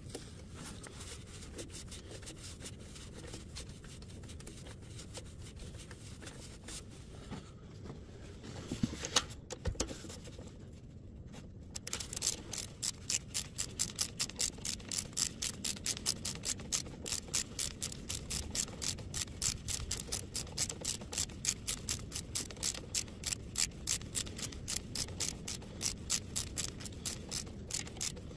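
A socket ratchet on an extension clicking in a steady rhythm of about three clicks a second as it turns a spark plug on the Kohler 20 kW standby generator's engine. Before the clicking starts, about twelve seconds in, there is only quieter rubbing and handling of the tool, with a couple of knocks.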